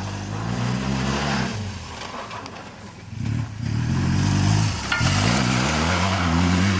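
BMW R 1200 GS boxer-twin motorcycle engine revving in repeated surges, the pitch climbing and dropping as the throttle is worked while the bike slides through loose dirt. A rushing hiss sits over the engine during the later surges.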